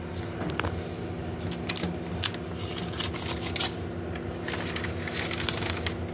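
Comic book, silicone release paper and cardboard boards being handled: scattered crinkles, taps and light clicks over a steady low hum.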